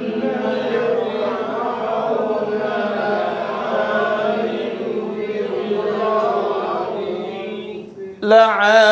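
A group of voices reciting a line of the Quran together in a slow chant, "wa inna Fir'auna la'alin fil ard", repeating it after the teacher. Near the end a single man's voice takes over, reciting clearly.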